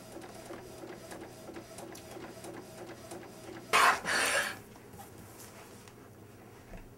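Photo printer running with a steady whir and faint regular ticks. About four seconds in comes a short, loud scraping swish.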